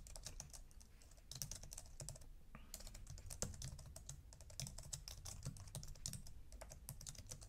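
Typing on a computer keyboard: faint, quick, irregular keystrokes.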